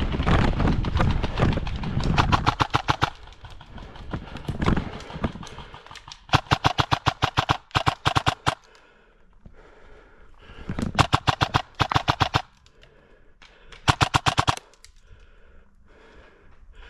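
Airsoft electric gun (AEG) firing several short full-auto bursts, each a quick even run of sharp cracks, with quieter gaps of a second or more between them.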